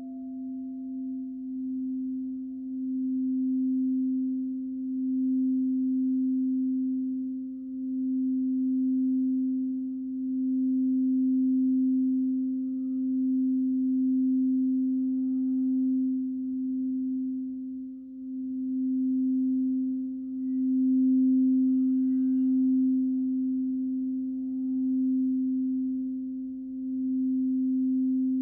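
Crystal singing bowl sung with a mallet circled around its rim: one steady low tone that swells and eases slowly, with a fainter higher overtone above it.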